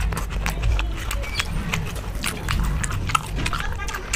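Close-up chewing of chole bhature, heard as a steady run of short mouth clicks and smacks as two people eat.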